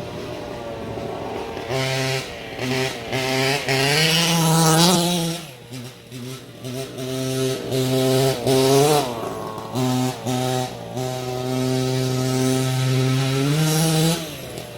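Two-stroke petrol engine of a 1/5-scale RC car revving up and easing off again and again on the throttle, then held at steady high revs for a few seconds before backing off near the end.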